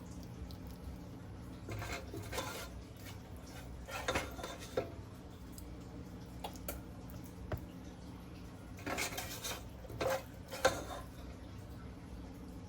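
A spoon clinking and scraping against dishes and a metal muffin pan in four short bursts, over a steady low hum.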